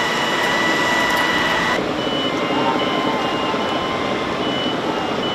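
Dense, loud steady noise with a steady high electronic tone that stops about two seconds in. After it comes an intermittent electronic beeping in short repeated pulses, like a vehicle warning alarm.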